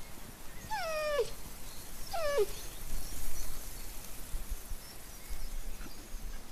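A dog whines twice, each a short high call falling in pitch, about a second apart near the start, followed by steady outdoor background noise.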